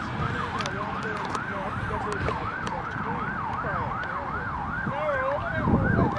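Police car siren on a fast yelp, its pitch sweeping up and down about three times a second. A second, lower siren wavers more slowly underneath at times, over low road rumble.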